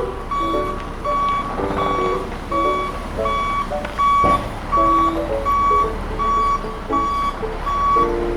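Vehicle reversing beeper: a single high beep repeating evenly about every 0.6 s, with a changing run of lower tones beneath it.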